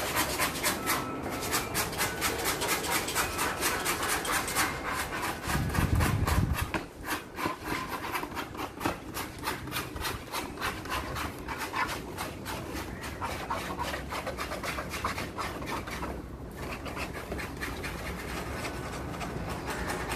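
Hair being scraped off a wet animal hide by hand, in quick regular strokes, several a second, as the hide is prepared for a thavil drum head. A low bump about six seconds in.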